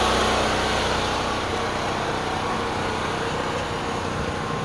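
An engine running steadily at a constant speed, slowly growing fainter.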